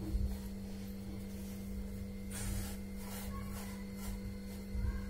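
Faint rubbing of a wooden rolling pin and hands working wheat dough on a floured wooden board, over a steady low hum.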